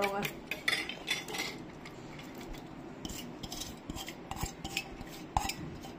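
Metal spoon clinking and scraping against a stainless steel bowl of beaten egg, quick irregular clicks for about the first second and a half. Then scattered light metal clinks as chopped onion, green chilli and coriander are tipped into the bowl from a steel plate.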